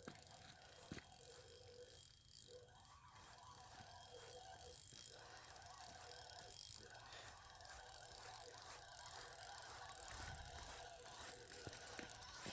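Faint whirring of a fishing reel being cranked to bring in a hooked fish, with a light knock about a second in and a brief low rumble near the end.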